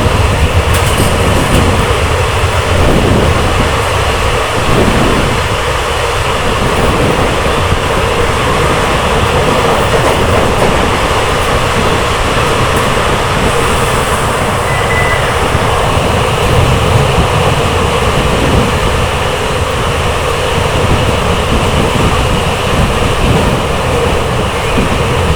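Passenger train running along the track, with a loud, steady running noise of the train on the rails.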